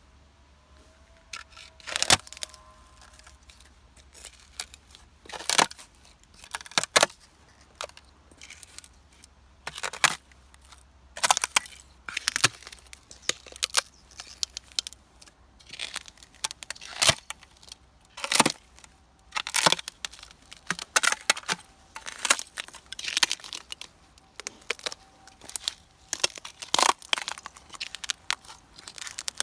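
Thin ice on a road cracking and shattering crisply underfoot as it is stomped on, in sharp crunching breaks. They come a few seconds apart at first, then about one or two a second from about ten seconds in.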